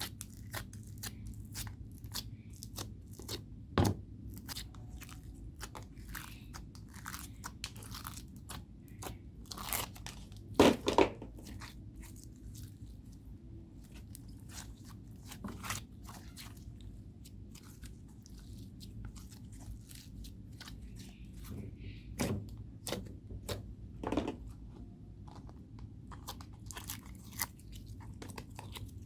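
Homemade slime being squished, stretched and kneaded by hand, giving irregular sticky clicks, crackles and pops. A few louder pops come about four, eleven and twenty-two seconds in.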